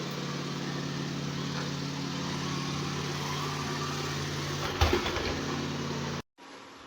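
Dreame L10s Pro Gen 3 robot vacuum running: a steady motor hum over a hiss of suction, with a single sharp knock about five seconds in. The sound cuts off abruptly near the end.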